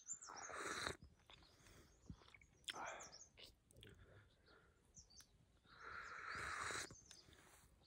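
A man drinking hot coffee from a steel tumbler in three noisy sips, near the start, about three seconds in and about six seconds in, the last the longest. Small birds chirp faintly near the start.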